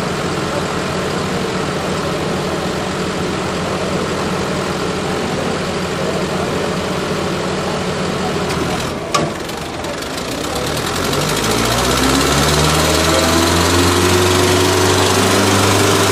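Tractor engine running steadily, with a sharp click about nine seconds in. From about eleven seconds the engine revs up, its pitch rising, then holds at the higher speed.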